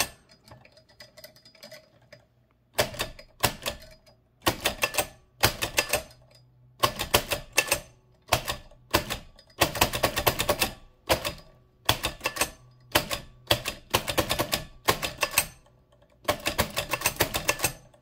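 1925 AEG Mignon 4 index typewriter being speed-typed: the impression key and type cylinder clack in quick bursts of several strokes, starting about three seconds in. Short pauses fall between the bursts as the pointer is moved to the next character.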